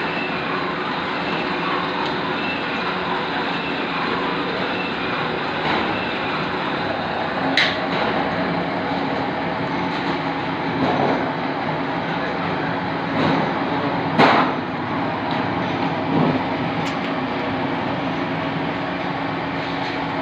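Steady machinery running, a dense hum with several held tones, broken by a few sharp knocks.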